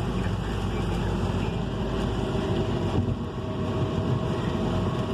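Steady cabin noise of a car driving in heavy rain: tyres on the wet road and rain on the car over a low rumble.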